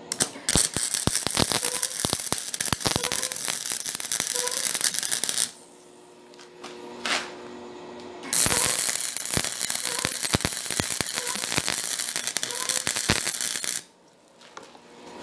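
Electric arc welding: the arc crackling and sputtering in two runs of about five seconds each, with a short pause between them, as a long nut is welded onto square steel tubing.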